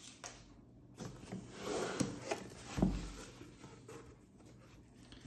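Cardboard shipping box being handled and its flaps folded open: scattered rustles and scrapes of cardboard, with a dull thump a little under three seconds in.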